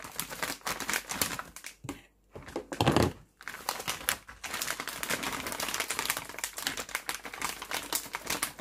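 Crinkling of a foil-lined plastic bag of frozen cocktail sausages being cut open and handled, with a dense run of fast rustles and small clicks. There is a loud thump about three seconds in. The frozen sausages knock onto a wooden chopping board as they are tipped out.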